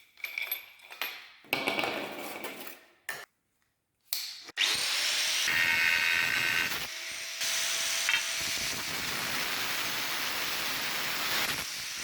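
Metal being worked on steel nuts: a few short rasping hand-tool strokes, then after a brief pause a power tool running steadily, its sound changing abruptly several times.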